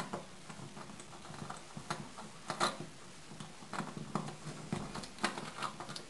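Irregular small clicks, taps and scrapes of a screw and hardware being handled and fed through a hole in drywall.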